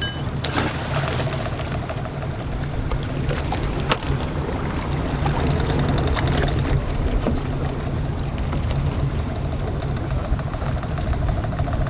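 Boat's engine idling steadily, with a hiss of wind and water over it; a single short knock about four seconds in.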